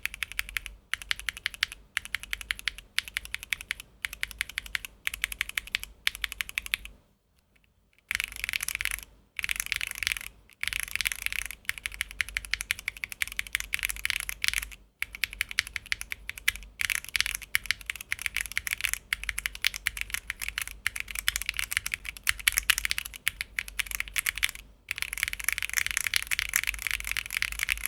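Fast typing on a Tofu60 2.0 mechanical keyboard with Gateron Milky White Pro linear switches (nylon housings, POM stems, about 40 g bottom-out): quick runs of key clacks with short gaps, and a pause of about a second some seven seconds in.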